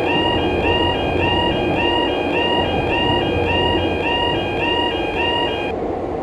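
Japanese railroad crossing warning bell ringing about twice a second over the rumble of a passing train. The bell stops near the end while the train keeps going.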